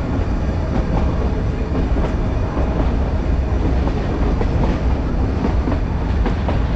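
Toy-train coaches of the Nilgiri Mountain Railway running along the track, a steady loud rumble of wheels on rails with faint rail-joint clicks in the second half, heard from an open carriage door.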